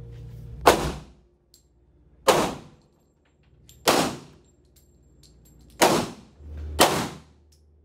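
Five gunshots on an indoor shooting range, spaced one to two seconds apart. Each is a sharp crack followed by a short ring of reverberation.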